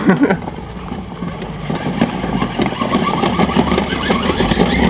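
Kids' ride-on truck converted to radio control, its 2150kv brushless motor and drivetrain whining as it drives across grass, the pitch wavering with the throttle. A sharp knock comes right at the start.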